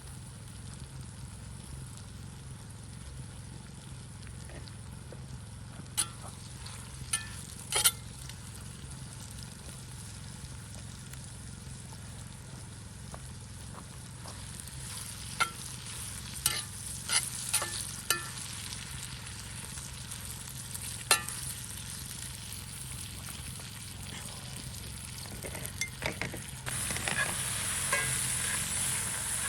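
Marinated fajita meat sizzling over a campfire in a steady hiss, with scattered sharp pops and clicks. The sizzle grows louder near the end.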